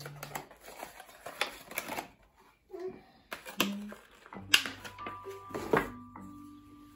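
Plastic wrapping crinkling and irregular sharp clicks as a Ulanzi MT-08 mini tripod is unpacked by hand. Soft music notes come in about halfway through.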